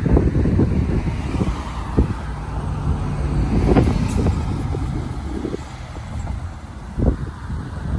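Road traffic heard from a vehicle on the move: cars driving past with a steady low rumble of engines and tyres, an engine hum standing out for a few seconds near the middle.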